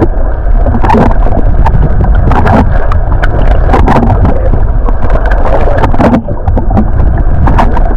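A boat on open water, making a loud, steady low noise with wind on the microphone, cut through by many sharp knocks and splashes.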